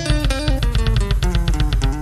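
Instrumental sungura band music: picked electric guitars playing busy lines over a bass guitar and a steady beat.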